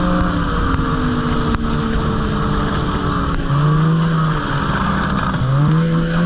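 Snowmobile engine running under throttle while riding, its pitch sinking and rising again as the throttle changes, with a dip and climb near the end.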